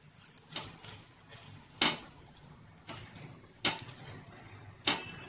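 Wooden spatula knocking and clicking against a flat iron tawa as a sandwich is pressed and turned: five sharp knocks roughly a second apart, the second one the loudest.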